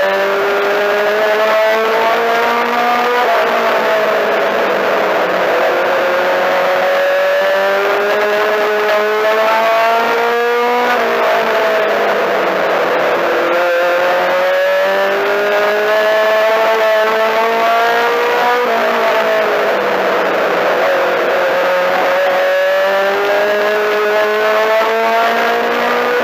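Four-cylinder Mini-Stock race car engine heard from inside the car at race speed, its pitch climbing steadily for several seconds and then dropping, over and over: accelerating down the straights and lifting into the turns.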